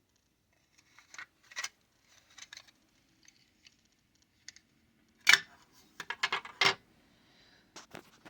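Small hard plastic parts of a disassembled wireless doorbell being handled: light clicks and taps, then a louder clatter about five seconds in and a quick run of clicks just after.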